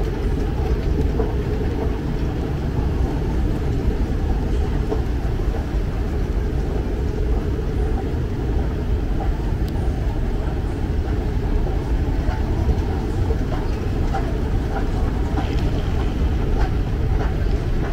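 Airport moving walkway running: a steady low rumble with no change in pace.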